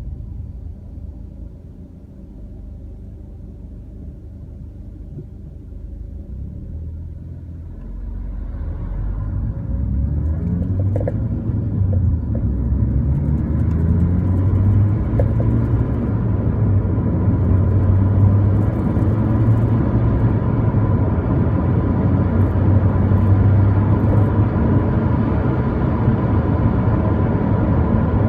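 Car pulling away: the engine rises in pitch as it accelerates, then settles into a steady driving rumble that grows louder, with a couple of faint clicks along the way.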